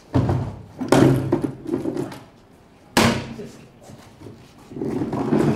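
Small plastic wheelie bin being emptied into a large wheeled waste container: three loud knocks and clatters, about a second apart and then two seconds later, as the bin is tipped and banged against the container's rim and the rubbish drops in. A longer rumble follows near the end as the emptied bin is set down and moved.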